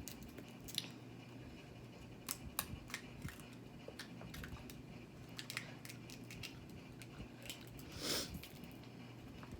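Crab shells being snapped and picked apart while eating, giving scattered sharp clicks and cracks, with a longer crackle about eight seconds in. A fan hums steadily underneath.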